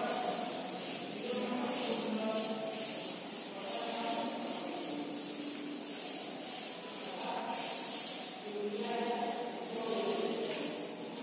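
A board duster rubbing chalk off a chalkboard in quick, repeated back-and-forth strokes, erasing the writing.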